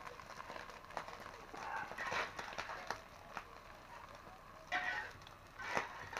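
Wood cooking fire crackling with irregular small clicks and knocks, and a few brief louder sounds about two seconds in and near the end.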